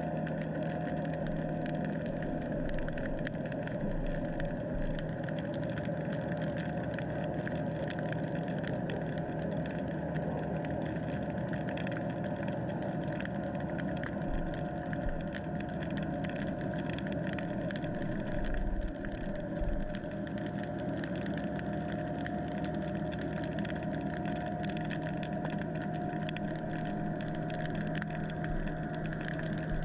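Steady motor hum heard underwater, a low drone with a higher steady whine over a hiss, with a few dull low thumps about two-thirds of the way through.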